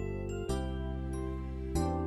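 Gentle background music with sustained chords and chiming bell-like notes, the chord changing twice.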